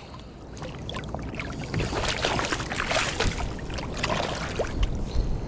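Water splashing and trickling around a fishing kayak, with scattered small knocks and ticks.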